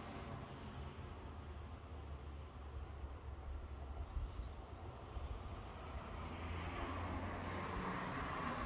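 An insect chirping in an even, high-pitched pulse over a steady low rumble of distant storm ambience, with a swell of noise building near the end.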